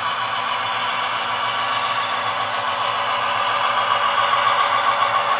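Model freight train behind a B&O SD-9 model diesel running on the layout's track: a steady rolling rumble and rattle of wheels and motor, growing a little louder past the middle as it comes nearer.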